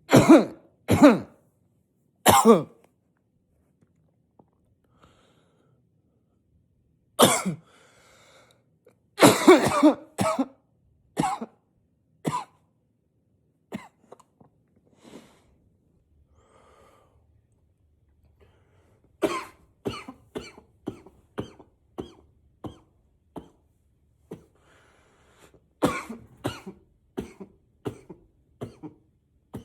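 A man coughing in fits, muffled into a pillow while trying to stay quiet. There are loud, harsh coughs through the first dozen seconds, a few fainter ones after that, then two runs of quick, short coughs, about two a second, in the second half.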